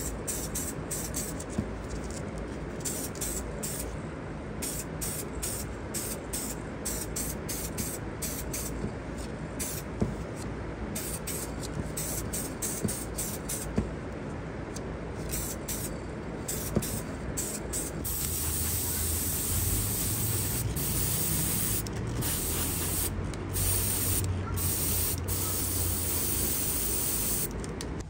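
Spray paint hissing in repeated short on-off bursts, the sound of a model part being painted. About two-thirds of the way through, the hiss becomes more continuous and a steady low hum joins it.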